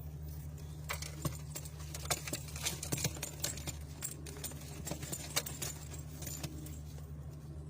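Irregular sharp clicks and light metallic rattling for several seconds, over a steady low hum.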